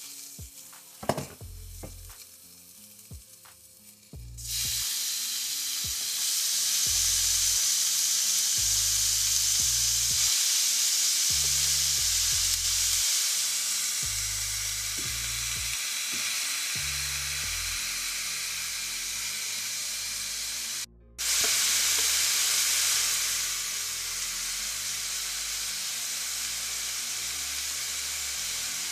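Diced onion and raw ground meat frying in a nonstick skillet. A few knocks and a soft sizzle give way, about four seconds in, to a loud steady sizzle as the meat goes into the hot pan. The sizzle breaks off briefly and returns a little quieter.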